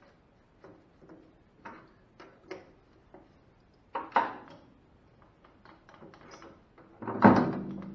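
Metal tooling being handled and set down at a lathe: a series of light clicks and knocks. The loudest knock, about seven seconds in, rings on briefly.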